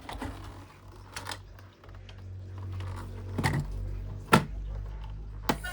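A handful of sharp clicks and knocks from objects being handled, over a low steady hum; the loudest two come a little under a second apart near the middle.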